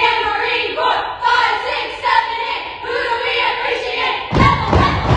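Voices calling out or chanting together. A heavy thump comes about four seconds in.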